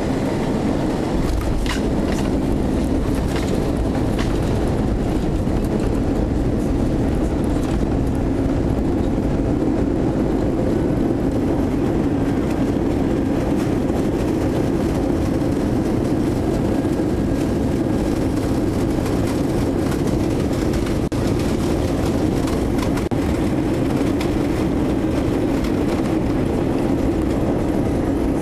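Steady cabin rumble of an Airbus A321 rolling on the ground after landing: engine noise mixed with the wheels rumbling over the pavement, with a few faint clicks in the first seconds.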